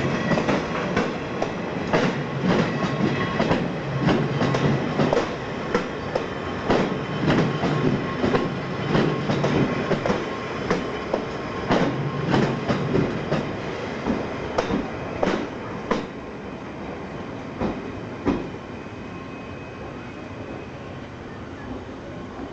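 Railway cars rolling over rail joints, their wheels clacking again and again over a rumble. The clacks thin out and the sound drops about two-thirds of the way through, leaving a quieter rumble with one or two last clacks.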